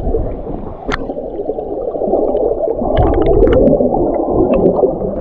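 Water heard from under the surface: a muffled, churning rumble of moving water and air bubbles stirred up by a swimmer kicking close by, with scattered small clicks and ticks.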